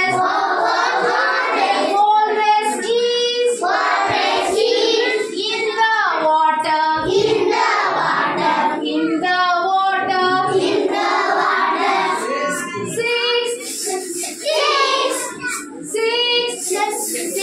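A group of young schoolchildren singing a song together in unison.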